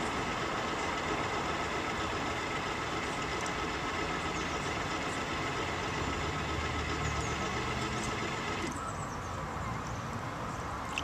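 A boat's motor running steadily, a dense hum with a steady whine on top. About nine seconds in, the higher part of the sound drops away abruptly and the motor runs on a little quieter.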